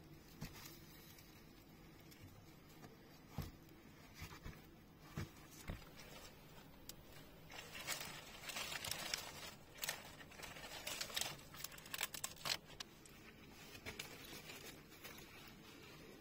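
Quiet handling sounds: scattered light clicks and knocks, with a stretch of crinkling rustle in the middle lasting about five seconds.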